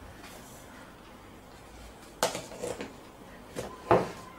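A spoon clinking against an enamel bowl as sugar is tipped into a salt brine: a few short knocks in the second half, the last one the loudest.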